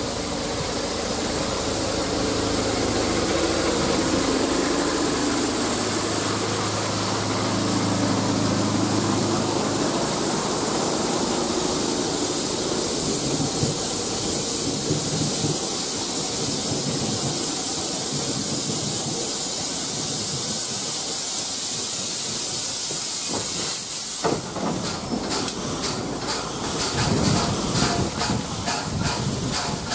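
Train of coaches hauled by LMS Coronation Class steam locomotive 46233 'Duchess of Sutherland' rolling slowly past, wheels running over the rails with steam hissing. Near the end the locomotive stands with steam hissing and a run of quick clicks.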